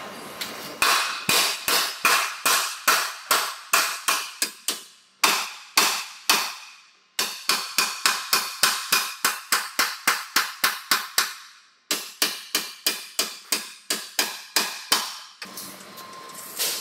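A sledgehammer strikes the steel chassis rail of a Toyota Land Cruiser Prado over and over, about two to three blows a second, and each blow rings. This is the deformed frame rail being beaten straight while a frame-straightening clamp and chain hold it under pull. The blows pause twice with the ring dying away, and stop shortly before the end.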